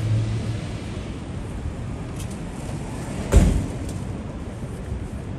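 City street ambience with steady traffic noise. A low hum dies away in the first second, and a single short, low thump comes about three and a half seconds in.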